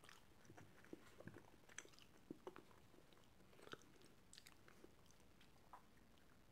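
Faint chewing: a person eating, with soft scattered mouth clicks and smacks over near silence.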